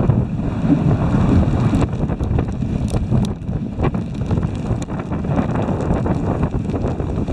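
Wind buffeting the microphone of a moving dog sled as a steady, loud rumble, with a few faint clicks.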